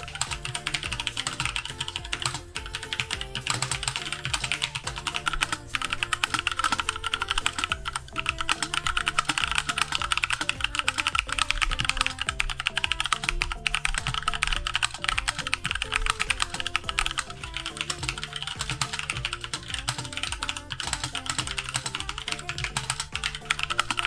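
Typing on a Drevo Excalibur mechanical keyboard with Outemu Brown tactile switches (clones of Cherry MX Browns) and double-shot ABS keycaps: a dense, unbroken stream of keystrokes, with background music underneath.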